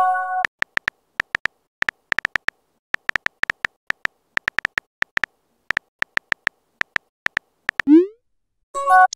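Phone keyboard typing clicks: a rapid, uneven run of short taps for several seconds as a text message is typed. A short synthetic chime sounds at the start and again near the end, and a quick rising swoop comes just before the last chime as the message is sent.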